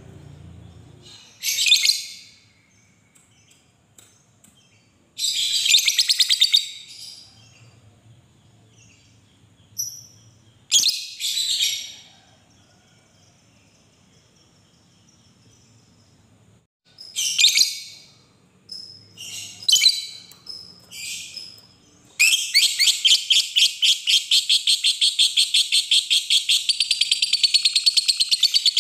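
Lovebird calling in short bursts of shrill chirps and chatter. About two-thirds of the way through it breaks into a long, unbroken, rapid chattering trill, the extended 'ngekek' call that lovebird keepers prize.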